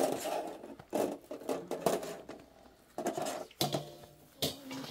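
Crisp pieces of food clattering against a metal tray and steel bowl as they are handled and tipped across, in several short bursts with sharp clicks. A brief low humming sound comes in about three and a half seconds in.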